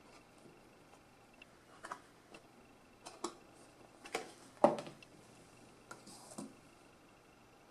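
Sparse light taps, clicks and soft paper rustles from a fold-out paper leaflet and card being handled and unfolded over a cardboard box, the loudest a sharp tap a little over halfway through.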